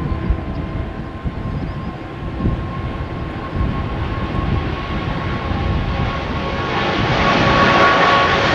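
Twin jet engines of a Boeing 777-200 at takeoff power during the takeoff roll and rotation, with a steady whine over the jet noise. It grows louder near the end as the airliner comes closer. Gusts of wind buffet the microphone underneath.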